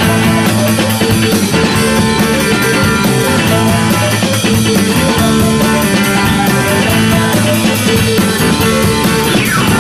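Rock music: an instrumental passage with electric guitar over a steady drum beat.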